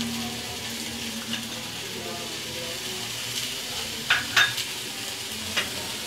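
A metal spoon stirring and tossing boiled egg noodles in a pot as salt is mixed in, over a steady hiss. The spoon clicks sharply against the pot a few times past the middle, twice in quick succession about four seconds in.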